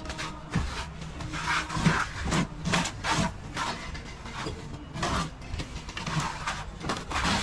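Plastering trowel scraping and smoothing plaster on a wall in repeated, irregular strokes, with a faint steady low hum underneath.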